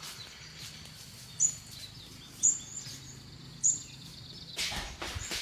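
A small bird chirps three short, high notes, about a second apart, over a faint steady high tone. A louder rustling noise comes near the end.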